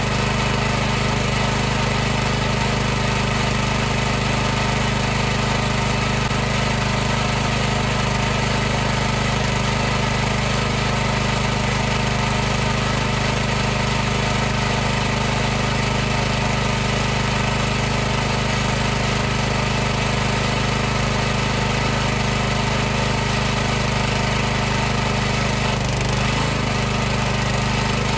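High-pressure washer's pump motor running steadily with an even hum, dipping briefly in pitch near the end.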